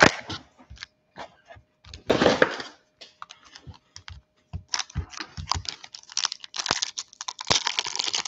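Foil trading-card packs being handled on a table: scattered light taps and clicks, with a crinkling rustle of a foil pack wrapper about two seconds in and again, more continuously, through the second half as a pack is worked open.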